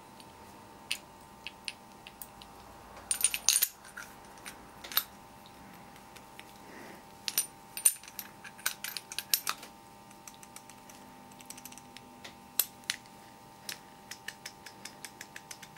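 Small metal clicks and taps, in irregular clusters, as the precision-ground steel spool and sleeve of a Char-Lyn hydraulic steering valve are handled and fitted together. A faint steady hum runs underneath.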